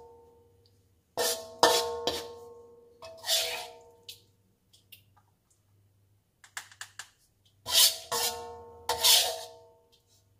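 Metal spatula knocking and scraping against a metal wok while scooping sambal out, the wok ringing briefly after each knock. About eight knocks come in clusters, with faint clicks between them.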